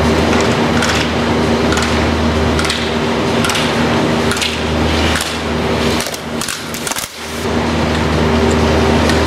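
Steady machinery hum of an indoor ski hall, with brief scrapes about once a second as a slalom skier carves turns on the snow. The hum dips for a moment about six to seven seconds in.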